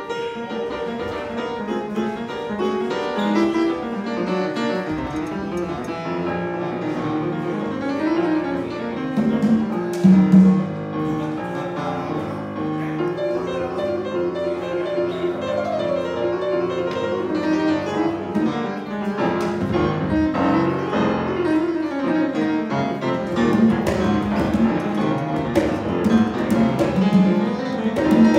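Grand piano played solo, a pianist warming up with a steady stream of notes and chords.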